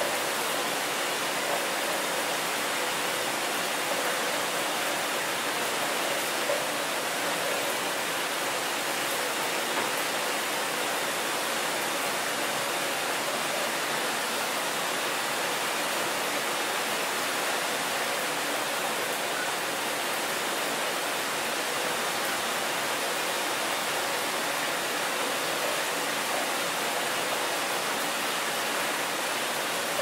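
Several locker-room showers running at once: a steady, even hiss of spraying water. A faint steady hum from an air vent lies underneath.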